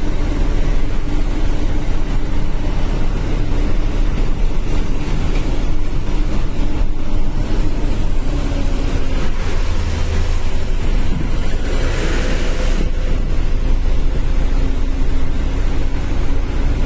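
Truck engine running with a steady drone inside the cab, over the hiss of tyres on a wet road. A brief louder hiss comes about twelve seconds in.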